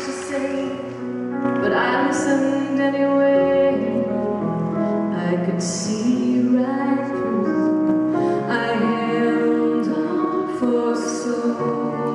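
A woman singing live into a handheld microphone, amplified through the hall's sound system, holding long notes over an instrumental accompaniment.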